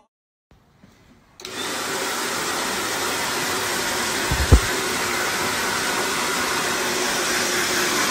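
A loud, steady rushing noise, like an appliance blowing air, cuts in suddenly about a second and a half in after near silence, with a brief low thump just past the middle.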